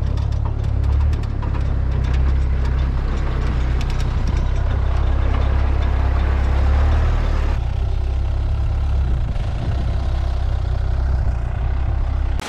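A small farm transport vehicle's engine running with a steady low rumble. Light clicks of a knife cutting pineapple come through in the first few seconds.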